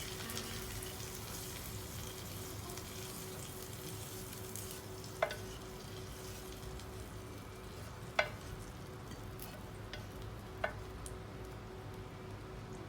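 A steady hiss with a faint hum, broken by three or four sharp clicks a few seconds apart.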